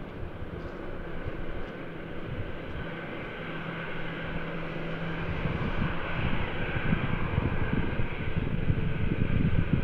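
Airbus A320-216's CFM56 jet engines at taxi power: a steady jet whine over a low rumble, growing louder through the second half as the airliner taxis closer.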